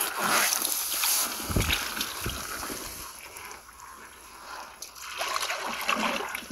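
Hands sloshing and splashing in shallow muddy water while groping along the bottom of a rice-field channel. The splashing is loudest in the first second, with a couple of low thumps soon after, then quieter stirring that picks up again near the end.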